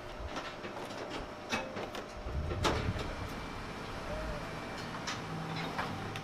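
Scattered metal clanks and knocks from work on a carnival ride's steel structure, over a low machinery rumble that comes in about two seconds in.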